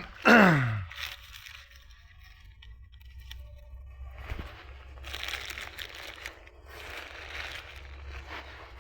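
A voice calls out with a falling pitch right at the start, then a plastic snack bag crinkles and rustles in repeated bouts through the second half.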